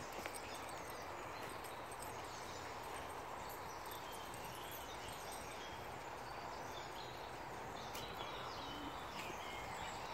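Spring woodland ambience: a steady background hiss with small birds singing, many short chirps and trills scattered through.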